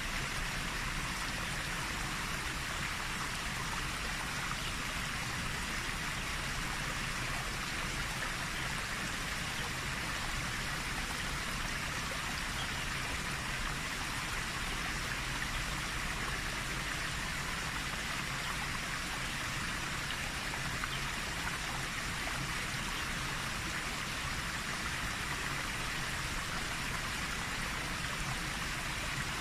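Floodwater pouring from a reservoir spillway and rushing down the channel below: a steady, even rush of water that does not change.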